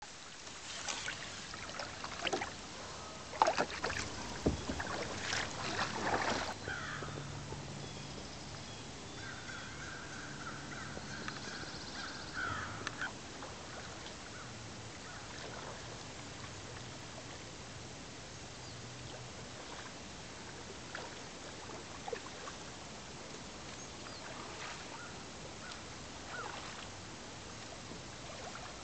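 Kayak on a pond: paddle and water sounds, with crows cawing. A cluster of loud sharp sounds comes between about three and six seconds in, and a steady high tone lasts a few seconds around ten seconds in.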